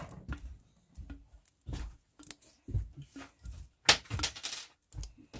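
A wooden spoon knocking and scraping a glass canning jar as applesauce is worked out of it into a metal pot. It is an uneven string of clinks and knocks, the sharpest about four seconds in.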